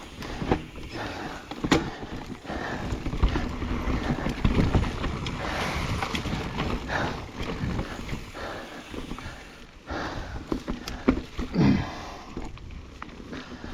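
Mountain bike riding on a dirt single-track trail: a steady rumble of tyres and wind on the microphone, with frequent short knocks and rattles from the bike over the ground.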